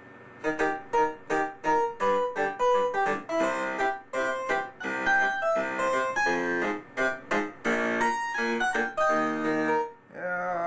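Roland EP90 digital keyboard playing its harpsichord voice: a quick run of separate notes, starting about half a second in.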